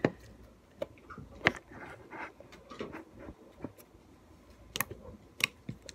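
Homemade slime and its plastic container being handled on a table: irregular sharp clicks and taps, about a dozen, the loudest near the start and about a second and a half in.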